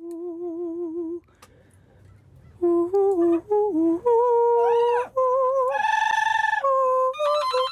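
A yellow-naped Amazon parrot and a human singer trading held, sung notes. After a short lull the notes step up and down in pitch, with a few rising-and-falling glides, and the loudest, brightest note comes about six seconds in.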